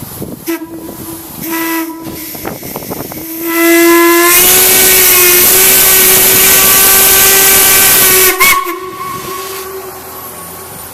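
A large whistle blowing: two short toots, then one long blast of about five seconds, its pitch rising slightly, with a loud rushing hiss over it. It cuts off about eight seconds in.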